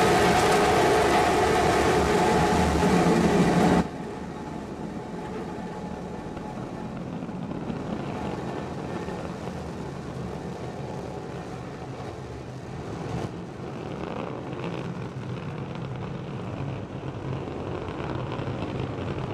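Starship SN15's three Raptor rocket engines burning on ascent: a loud, even rumbling noise that drops abruptly about four seconds in, leaving a quieter, steady rushing rumble.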